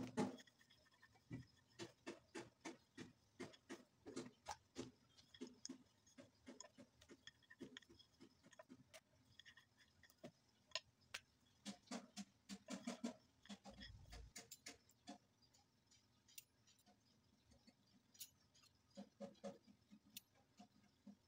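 Faint, irregular clicking and tapping from a wooden rolling pin working a disc of dough on a hard counter, the clicks sometimes coming in quick runs.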